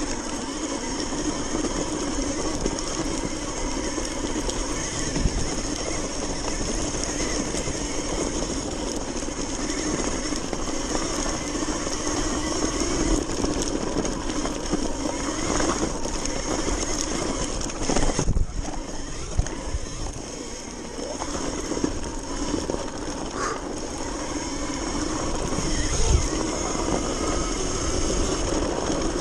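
Sur-Ron electric dirt bike riding over a snowy trail: a steady high motor whine over a rush of wind and tyre noise. A sharp knock comes about 18 seconds in, the level dipping briefly after it, and another knock near the end.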